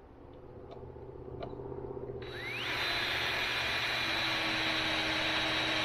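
Cordless drill driving a screw into the wooden arch. About two seconds in, the motor spins up with a rising whine, then runs steadily at speed.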